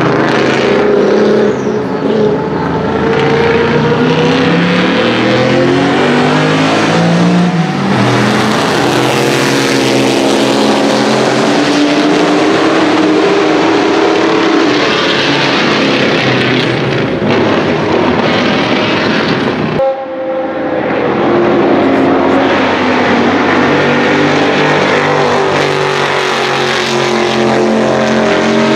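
A 1977 Aston Martin V8 RHAM-1 race car's 5.3-litre 90° V8 with a very loud open exhaust, at racing speed. The pitch climbs and falls again and again through gear changes and throttle lifts. About two-thirds of the way through the level dips sharply for a moment, and near the end the pitch rises steadily under hard acceleration.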